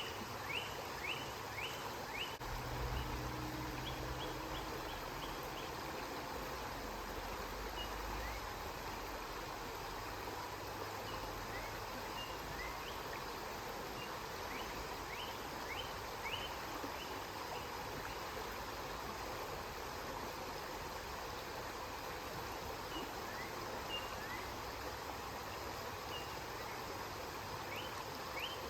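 River water flowing steadily. A bird calls in series of short, quick rising chirps at the start and again near the end, and a low rumble sounds a few seconds in.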